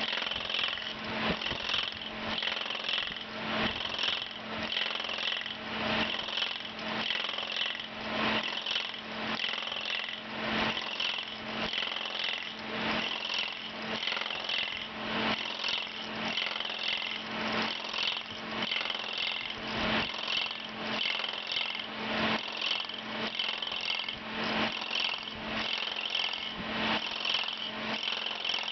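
Ober No. 11 copy lathe's spinning cutterhead cutting a turning wooden axe handle blank. A steady machine noise with a low hum under it, pulsing about one and a half times a second as the cutter bites into the rotating blank.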